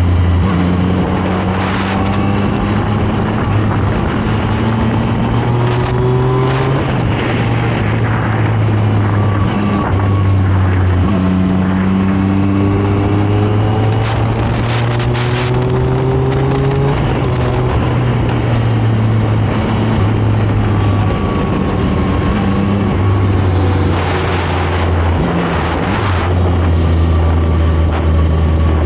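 Zontes 703RR sport bike's three-cylinder engine under way, the revs climbing through a gear and then dropping back at each shift, several times over.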